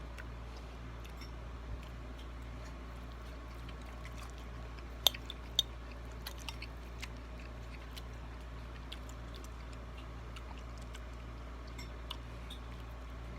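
A person quietly chewing food, with scattered small clicks and two sharper clicks about five seconds in, over a steady low hum.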